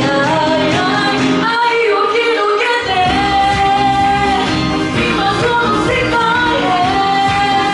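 A woman singing live into a handheld microphone over pop backing music, with long held notes. The bass drops out briefly about a second and a half in and comes back about a second later.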